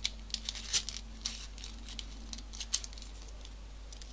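Folded paper origami pieces being pushed and slotted together by hand, giving scattered short crinkles and crackles of paper.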